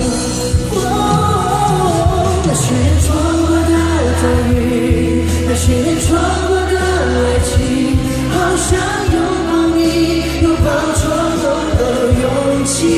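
Live pop ballad in a large concert hall: singing over full band accompaniment with a steady bass and drum strikes, with faint crowd shouts.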